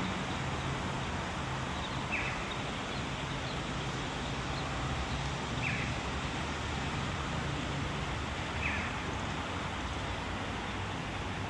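Steady outdoor town ambience with a low hum. Three short, high bird chirps sound a few seconds apart.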